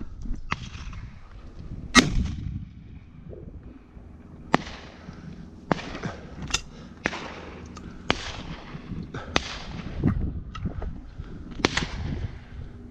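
Shotgun shots from several guns firing at passing thrushes. One loud, close shot comes about two seconds in, followed by roughly ten more nearer and farther shots at irregular intervals, several of them echoing.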